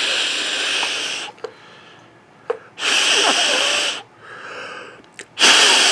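Three long, loud breaths blown into a CB radio's hand microphone, a second or two each; the last starts near the end. The breath noise drives the transmitter on single sideband to test its peak output power.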